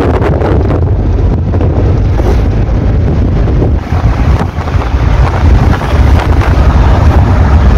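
Wind buffeting the microphone inside a moving car, over a steady low rumble from the road and engine.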